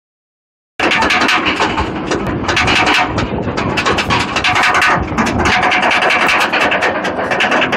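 Roller coaster train climbing the chain lift hill, with fast repeated clicking of the anti-rollback ratchet over the clatter of the lift chain. It starts abruptly about a second in.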